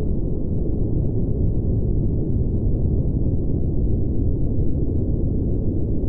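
A steady, muffled low rumble with nothing high in it, even in level and with no distinct strikes.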